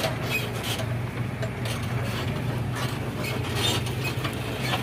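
John Deere 5105 tractor's three-cylinder diesel engine running steadily as it pulls a trolley loaded with soil, with irregular clicks and rattles over the engine's hum.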